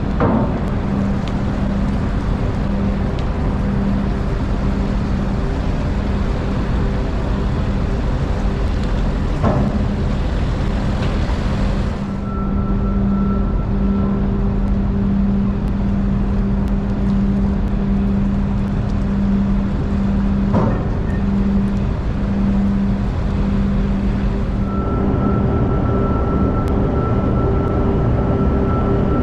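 Steady machinery noise with a constant low hum, as of vehicle engines running in a ship's vehicle deck, with a few short knocks. The sound changes abruptly twice, and a high steady whine runs alongside the hum near the end.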